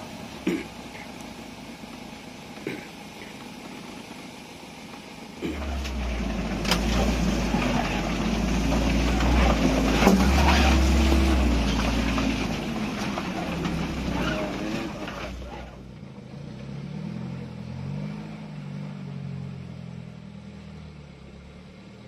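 Off-road vehicle engine revving. It runs moderately at first, then grows much louder and deeper from about five seconds in, with the pitch rising and falling for about ten seconds. It then eases back to a quieter, wavering run.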